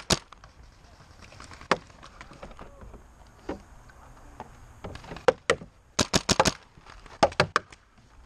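Paintball markers firing: sharp pops, mostly in quick strings of three to five shots, with single shots about two and three and a half seconds in and the heaviest firing in the second half.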